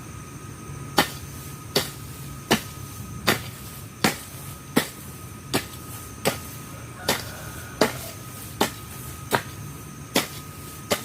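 A hand tool chopping weeds and grass in a steady rhythm: sharp strikes about one every three-quarters of a second, starting about a second in.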